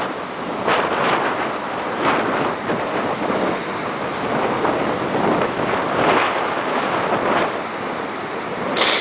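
Wind buffeting the microphone in irregular gusts over the rush of surf.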